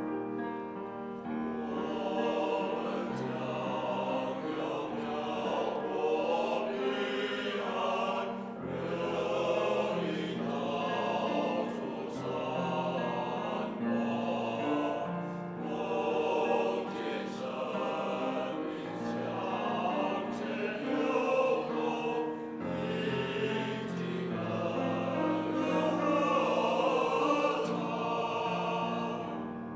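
Men's choir singing with grand piano accompaniment. The voices come in about a second in and stop just before the end, leaving the piano.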